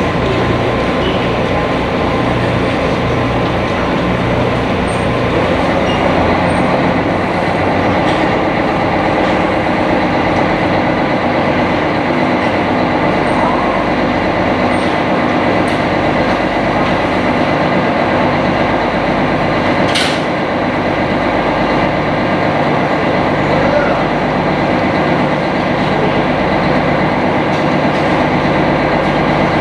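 Sightseeing boat's engine droning steadily under way, with a brief sharp click about twenty seconds in.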